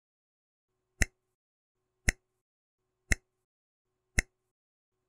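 Countdown timer ticking: four sharp clock-like ticks, one a second, starting about a second in.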